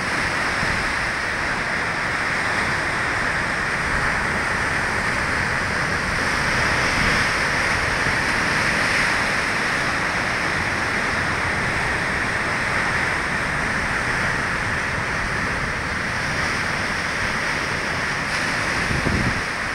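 Heavy sea surf breaking against rocky shore: a steady, unbroken rush of waves and spray.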